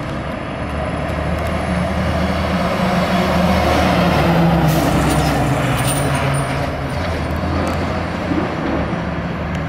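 Pierce fire engine's diesel engine pulling away and driving past, loudest about four to five seconds in, then easing off as the truck moves down the street.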